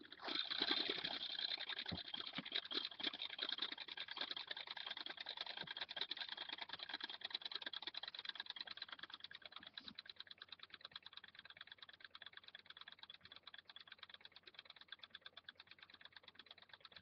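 Kreis Cygnus Beyblade launched into a stadium and spinning, rattling with a rapid run of fine ticks that slowly fades as the top loses speed.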